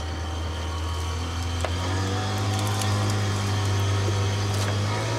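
A boat engine running steadily at low speed, its pitch stepping up slightly a little under two seconds in. A few light knocks and clicks come from the net and fish being handled on the boat's metal deck.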